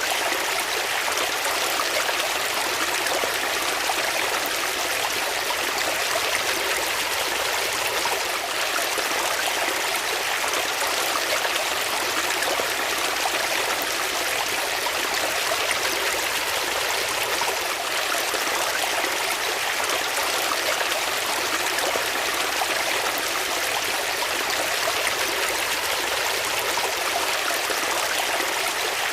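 Water flowing steadily, an even rushing hiss that does not let up.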